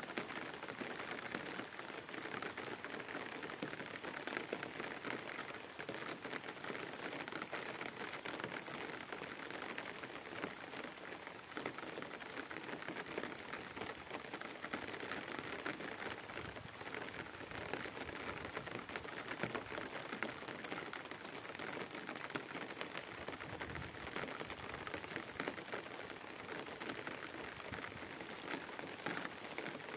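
Rain pattering steadily, a dense even mass of small taps.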